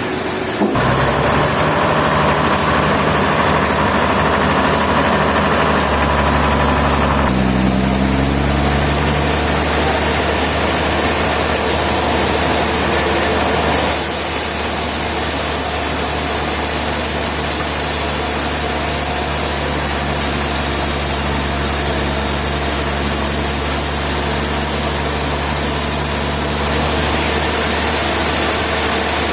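A heavy engine running steadily at a low pitch, its tone shifting a few times, with an added high hiss through the middle part.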